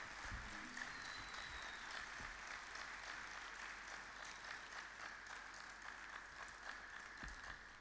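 Audience applauding, a steady patter of many hands clapping at the end of a solo oud piece.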